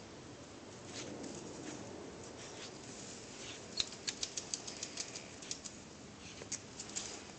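A Boston terrier puppy playing on a concrete patio with a dangling toy spider: light, sharp clicks and taps on the concrete. They come in a quick run of about four a second starting about halfway through, with a few more near the end.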